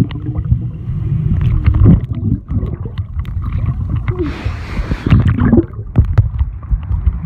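Water sloshing and gurgling close to a phone's microphone, over a heavy uneven low rumble, with a brighter hissing rush from about four seconds in.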